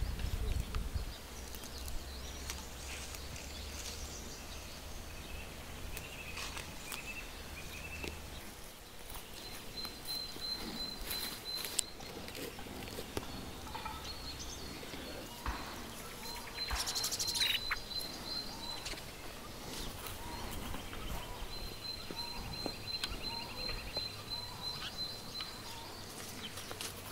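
Small birds singing in woodland, several runs of quick, high repeated notes and chirps. Dry leaves and twigs rustle and crackle now and then as wild violets are picked by hand from the leaf litter.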